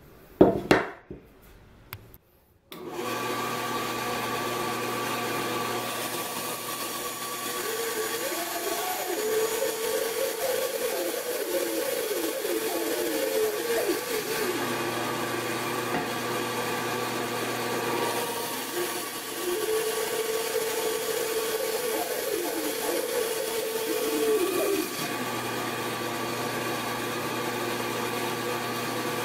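A couple of sharp knocks in the first second, then a benchtop bandsaw starts up about three seconds in and runs steadily. Twice, for about six seconds each, its sound wavers and changes pitch as the blade cuts through a wooden block.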